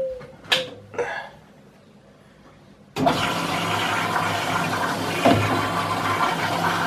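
Washing machine's programme dial clicking as it is turned, then about three seconds in water starts rushing steadily into the machine as it begins to fill.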